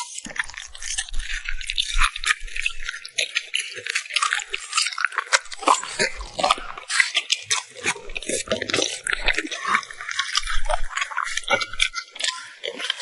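A French bulldog chewing and biting food: a dense, quick run of crisp crunches and clicks.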